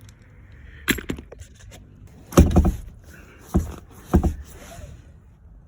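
A handful of sharp knocks and clunks, the loudest a quick cluster near the middle, as hand tools are moved aside and the pickup's rear seat and its latch are handled.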